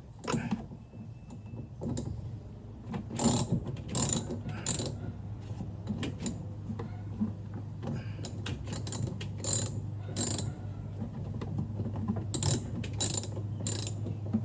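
Socket ratchet wrench clicking in several bursts as a bolt is turned off the truck battery's hold-down or terminal.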